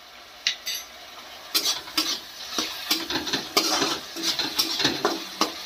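Onion and ginger-garlic masala, with freshly added turmeric, sizzling in oil in a metal kadai while a metal spatula stirs and scrapes against the pan. The scrapes and clinks come irregularly and grow frequent about a second and a half in.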